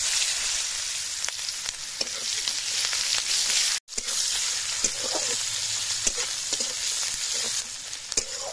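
Sliced onions sizzling loudly in hot oil in a steel kadai as they go in, stirred with a spatula that scrapes and taps against the pan. The sizzle breaks off for an instant just before halfway, then carries on.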